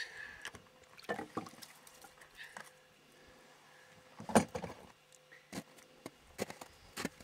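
Footsteps on packed snow and ice with small irregular knocks of handling, and one louder thump about four and a half seconds in.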